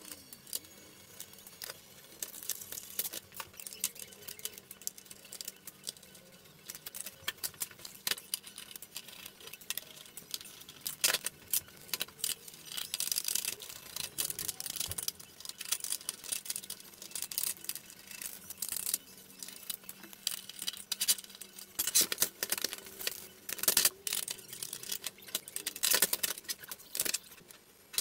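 Hands handling and taking apart the plastic case of a Coleco Adam computer: scattered clicks, rattles and knocks of plastic parts and cables, louder in the second half.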